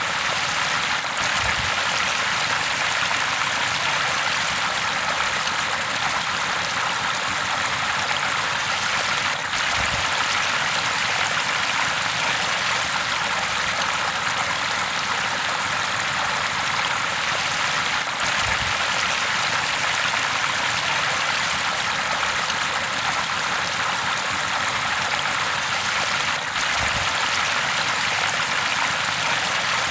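River water flowing, a steady even rush, with a faint low thump about every eight seconds.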